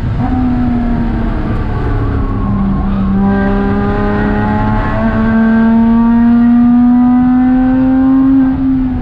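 Porsche Cayman 987.2's flat-six engine heard from inside the cabin. The revs fall as the car slows into a corner, then climb steadily for about five seconds under acceleration, and drop again near the end as the driver lifts off.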